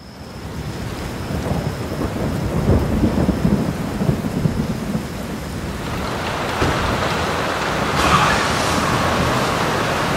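Thunder rumbling over steady rain for the first few seconds. From about six seconds in, the rain becomes a louder, even hiss on the building's roof, heaviest about eight seconds in.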